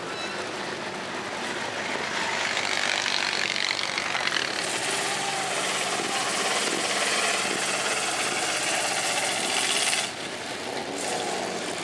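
Off-road buggy and side-by-side engines running and revving through a mud pit, a loud, rasping mechanical noise with rising revs in the first few seconds. The sound changes abruptly about ten seconds in.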